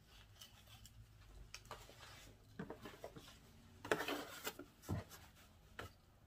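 Clothing being handled over a cardboard box: fabric rustling and rubbing with small clicks, loudest in a brief burst about four seconds in.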